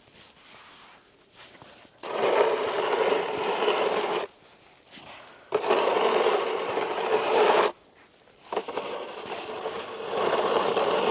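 Snow shovel scraping across pond ice, pushing snow in three long strokes of about two seconds each.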